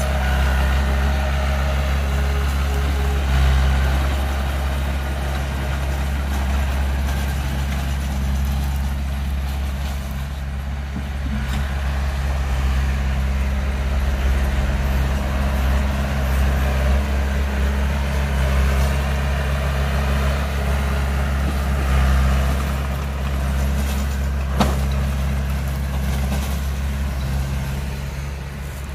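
Small crawler bulldozer's diesel engine running steadily as it pushes soil, with a single sharp knock near the end.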